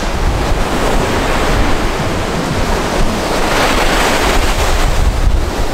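Ocean surf washing onto the beach, with one wave swelling and breaking about three and a half seconds in. Wind buffets the microphone throughout, adding a low rumble.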